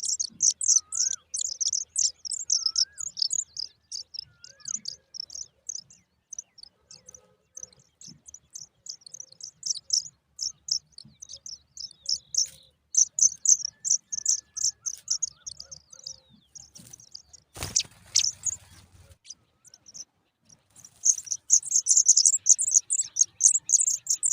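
Pipit nestlings begging with rapid, high-pitched chirping in bouts, loudest near the start, in the middle and again near the end. Four short whistled notes from another bird sound in the first few seconds, and a single sharp knock comes about two-thirds of the way through.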